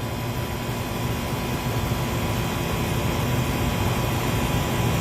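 A steady low mechanical rumble with a hiss over it, growing slightly louder.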